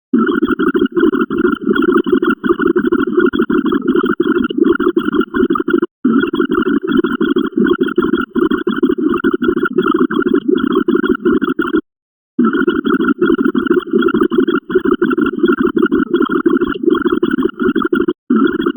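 A rapid, dense string of short electronic sound effects played back to back, many per second. It breaks off briefly about six seconds in, again at about twelve seconds, and once more near the end.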